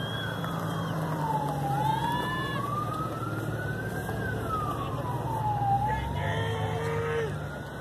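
Emergency vehicle siren in a slow wail, falling and rising in pitch about every four seconds, over the low running of a vehicle engine.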